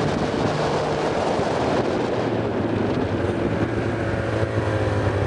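Ski-Doo snowmobile engine running steadily while towing a snowboarder, with a broad rushing hiss over it.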